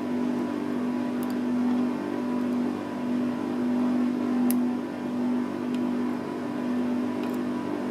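A steady low droning hum that swells and fades about once a second. A few faint, light clicks from a lock pick working in the padlock sit on top of it.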